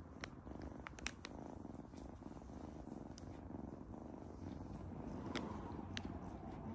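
Ragdoll kitten purring steadily while held, with a few sharp clicks about a second in and near the end.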